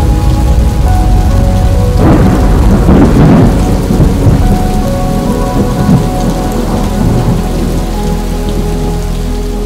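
Thunderclap rolling and rumbling about two seconds in, dying away over several seconds, over steady rain and sustained ambient music chords.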